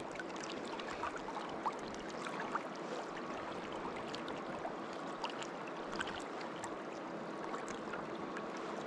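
Deschutes River water rushing steadily around a wading angler, with faint scattered splashes and drips.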